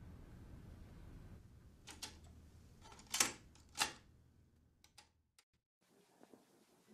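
A Yamaha cassette deck being handled: a few sharp plastic clicks of its tape door and buttons, the two loudest close together about three seconds in, with smaller ticks after. A faint low hum underneath drops away early on.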